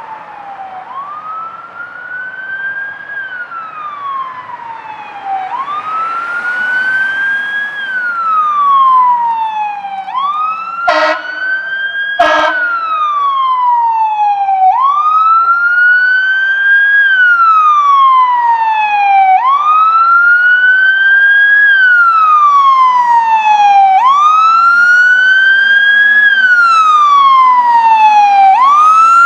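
Fire engine siren on the 2012 KME Predator pumper, wailing up and down in slow cycles about four and a half seconds long. It grows steadily louder as the engine approaches. Two short blasts break in about eleven and twelve seconds in.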